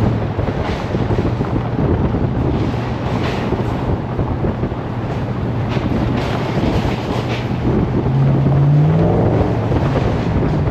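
Off-road vehicle's engine running at a steady cruising pace on a gravel trail, with wind buffeting the microphone. About eight seconds in, the engine revs up briefly, its pitch rising, then settles back.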